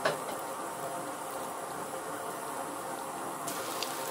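Oil sizzling steadily as halved brinjals shallow-fry in a pan, with a sharp click at the very start and scattered crackling pops in the last half second.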